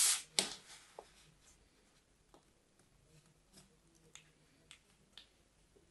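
Kinetic sand being dropped and pressed into a plastic sand mould. There are two short rustling bursts at the start, then faint, scattered crumbly crackles as more sand is packed in.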